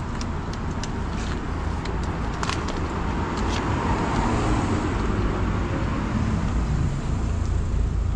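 Steady street traffic noise with a low rumble, and a few short clicks over it.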